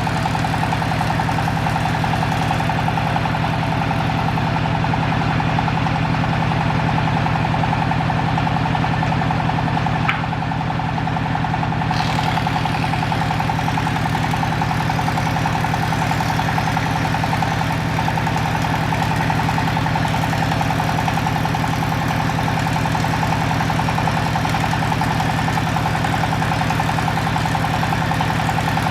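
A woodworking machine's motor running steadily at an even pitch, with one faint click about ten seconds in.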